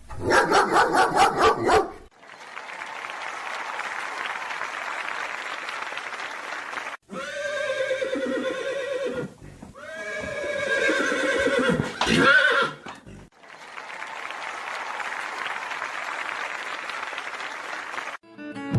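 A horse whinnying twice, each a long wavering call that falls away at the end, between stretches of steady noise. At the start, about two seconds of rapid, evenly repeated barking-like calls.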